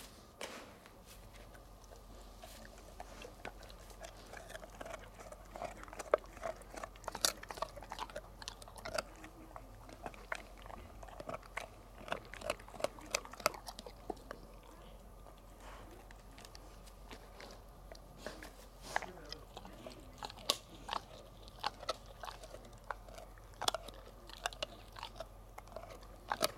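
Golden retriever chewing a dried pig ear: irregular crisp cracks and crunches as it gnaws, with a few quieter seconds past the middle.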